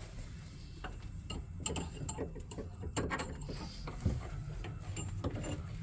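Irregular metallic clicks and clinks of hand work on a bus's throttle linkage, a stronger knock about four seconds in, over a steady low hum.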